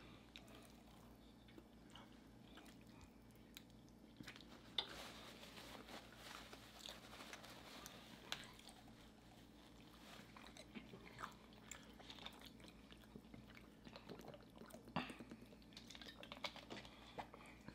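Faint chewing and lip-smacking of people eating chili-lime turkey wings with their fingers, with scattered short wet clicks and smacks, the sharpest about five seconds in and near fifteen seconds. A low steady hum lies underneath.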